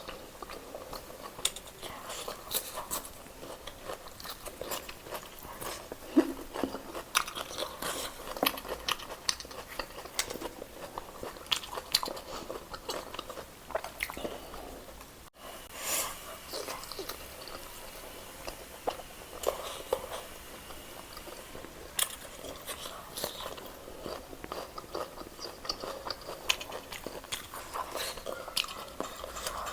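A person eating close to the microphone: irregular biting and chewing with frequent crisp crunches, likely roast chicken. A brief dropout comes about halfway through.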